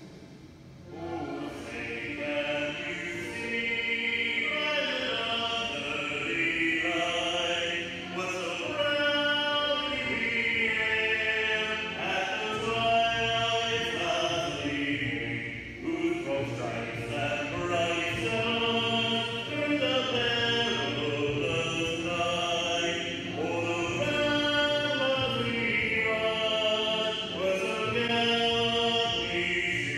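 A group of voices singing together like a choir, holding long notes that move from pitch to pitch without a break.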